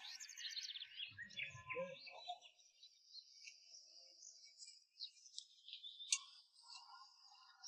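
Faint bird-like chirping in the background, with a sharp tick about six seconds in.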